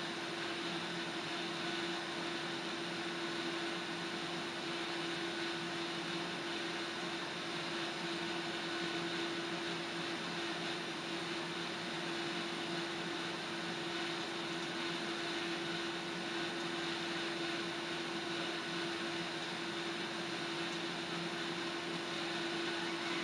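Steady hiss of a gas stove burner heating water, with a steady low tone in it.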